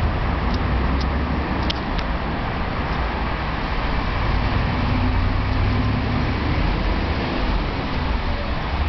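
Steady low rumble and hiss of a vehicle moving along a street.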